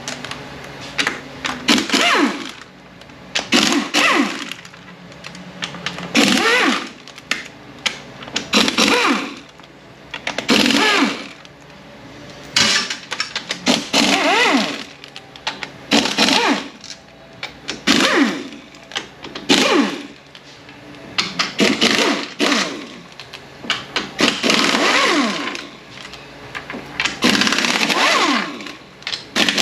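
Hand-held power tool running out 13 mm bolts on a 9T65 transmission case in a dozen or so short runs, about one every two seconds, each a whine that rises and falls in pitch.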